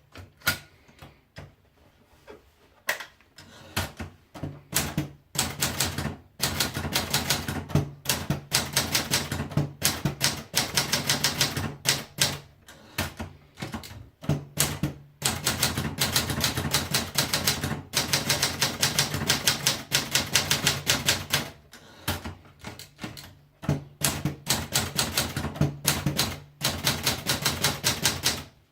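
Adler Gabriele 25 electronic daisy-wheel typewriter printing. For the first few seconds it makes scattered single strikes, then long runs of rapid, evenly spaced strikes broken by short pauses, over a steady low hum from the machine.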